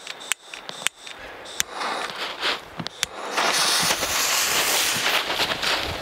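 Fuse of a hand-lit 5-inch fireworks display shell catching with a few sharp crackles, then hissing and fizzing steadily from about halfway through.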